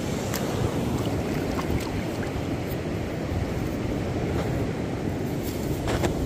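Steady low rumble of wind buffeting the microphone, with a few faint scrapes and crunches from a hand digging in damp sand.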